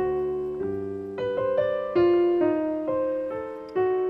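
Background piano music: a slow, gentle melody of struck notes that ring and fade over held lower notes.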